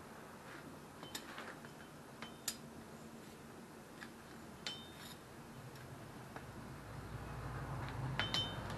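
Light metallic clinks of blacksmith's tongs against a glowing steel block, about eight scattered clicks that ring briefly, two close together near the end. A low hum builds under them over the last few seconds.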